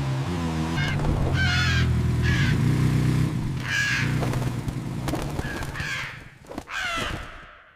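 Seagulls squawking, about six harsh cries, over the steady low hum of a motor scooter engine that fades away near the end.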